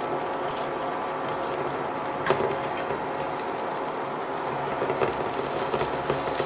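Bread sandwich frying in margarine in a pan, sizzling steadily, with a sharp clack of a metal utensil against the pan about two seconds in and lighter taps and scrapes near the end as the sandwich is turned.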